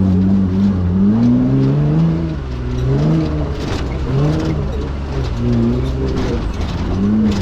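Off-road race vehicle's engine revving up and down under throttle, its pitch rising and falling about once a second.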